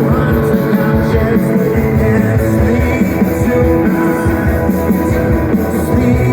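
Rock band playing live, with guitars, bass, drums and singing. The sound is dull and muffled, with little treble.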